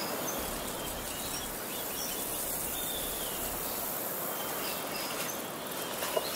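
Steady outdoor nature ambience: an even hiss of background noise with faint, scattered high bird chirps.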